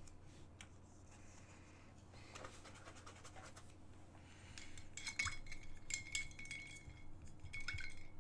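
Scratchy scraping across a painted canvas as paint is dragged and spread over it. It starts faintly, then grows louder about halfway through, turning into dense strokes with a squeak in them.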